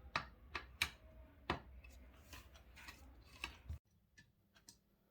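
Sharp, irregular clicks and taps of a screwdriver and the plastic housing of an electric iron being handled while its screws are undone. Near the end the low background hum stops abruptly, leaving only a few faint clicks.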